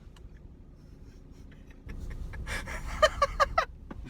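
A man bursts into laughter, short rapid breathy laughs about five a second, over a low rumble that starts just before the laughs; by his own account he farted as he laughed.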